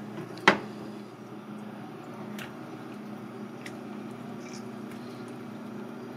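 Wet squishing of raw cuttlefish skin being peeled off the mantle by hand, with one sharp knock about half a second in and a few faint clicks later. A steady low hum runs underneath.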